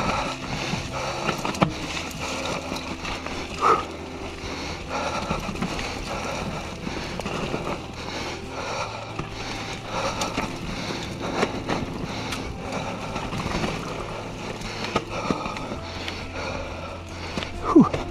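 Norco Range A1 full-suspension mountain bike rolling over a rough dirt trail: steady tyre noise with frequent rattles, clicks and knocks from the bike over rocks and ruts.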